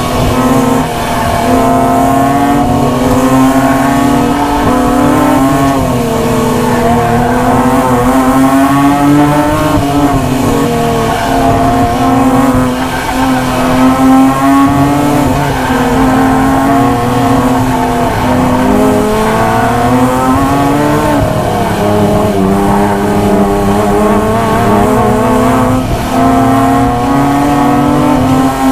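Acura NSX's mid-mounted V6 heard from inside the cabin, driven hard through an autocross course: the engine note climbs and drops again and again as the driver accelerates, shifts and lifts for corners.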